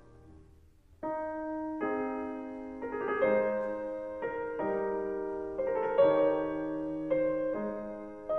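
Background music: a slow solo piano melody of single held notes, starting about a second in after a brief near-quiet gap.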